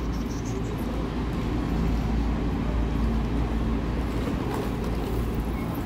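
City street background noise: a steady low rumble with an even wash of sound over it and no sudden events.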